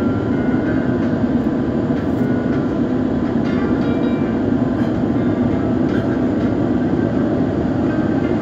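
Airbus A350 landing: a loud, steady rumble with no breaks.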